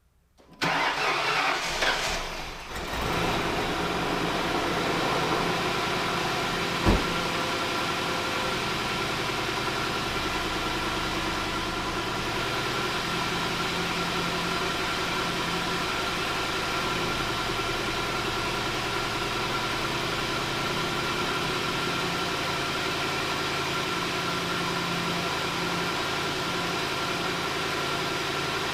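Lincoln Town Car's 4.6-litre V8 starting about half a second in, running unevenly for a couple of seconds as it catches, then settling into a steady idle. A single sharp click about seven seconds in.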